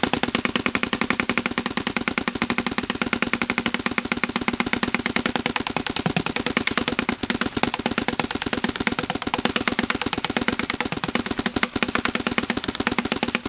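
Planet Eclipse Geo 3.5 electronic paintball marker firing a continuous ramping string at about sixteen balls a second, a rapid even stream of sharp pops as a full hopper is emptied.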